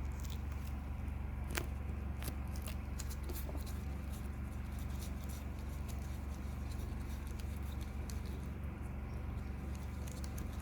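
Light, scattered clicks and taps of small containers and a utensil being handled while a small sample is mixed with water, over a steady low electrical hum.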